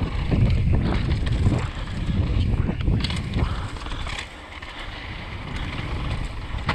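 Wind buffeting a GoPro's microphone while a Canyon Torque full-suspension mountain bike rolls fast down a dirt trail. The tyres rumble over the ground and the bike rattles and knocks over rough spots. The rumble eases about four seconds in.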